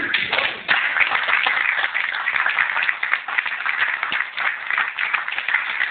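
Audience applauding: many hands clapping in a dense, steady patter that fills in fully about a second in.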